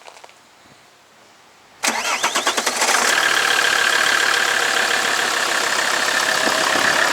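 Alfa Romeo 156 2.4 JTD five-cylinder diesel being started: the starter cranks for about a second, then the engine catches and settles into a steady idle.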